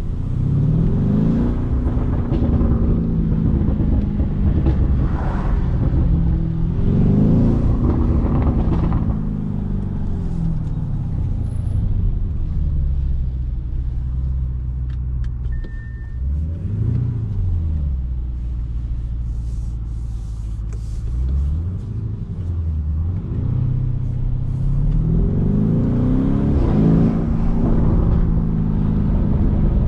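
Lamborghini Urus's 4.0-litre twin-turbo V8 engine and exhaust under hard acceleration, the engine pitch climbing steeply in several pulls and dropping back between them. In the middle it runs steadier and a little quieter, with two short rises and falls in pitch.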